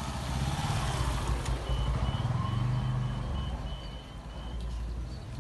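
Motor vehicle engines running on the road, swelling as a motorcycle rides past. Over them, a quick run of high-pitched electronic beeps, like a vehicle's reversing alarm, goes on from about a second and a half in until near the end.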